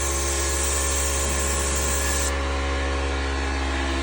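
Buderus GB172 condensing gas boilers running: a steady low hum with several steady tones over it, and a high hiss that stops abruptly a little over two seconds in.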